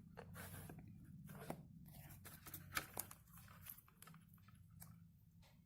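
Faint scattered clicks and rustles of objects being handled and set down on a desk, the sharpest tick about three seconds in, over a low steady hum.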